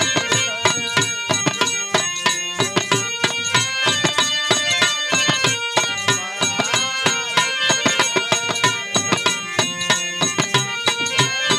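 Bhojpuri folk instrumental: a dholak played with quick, steady hand strokes over sustained harmonium chords.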